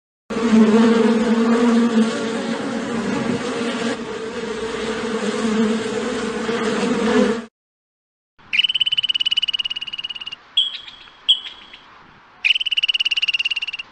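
Steady insect buzzing, as of flies or bees, for about seven seconds. After a short gap comes a high, rapidly pulsed trill in bouts of one to two seconds, with short chirps between them.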